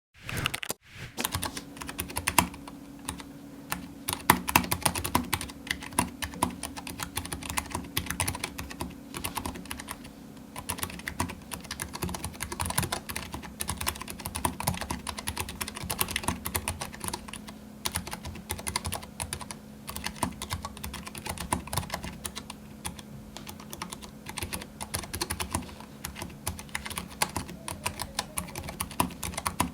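Fast, continuous typing on a Keychron K3 low-profile mechanical keyboard with optical switches: a dense, irregular patter of key clicks.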